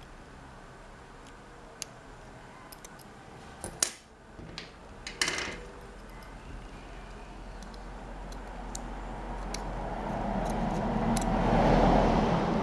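Small, sharp clicks and light taps of tools and small phone parts being handled as ribbon-cable connectors are unclipped from a Huawei Y3's board. A steady rushing noise swells in the background over the last few seconds.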